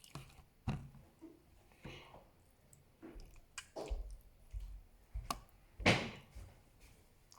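Homemade slime being squeezed and worked by hand, with a few scattered, separate squishes; the strongest comes about six seconds in.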